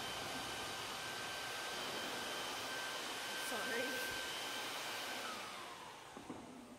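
Vacuum motor running with a steady rush of air and a high whine. About five seconds in it is switched off and winds down, its whine sliding lower as the rush fades.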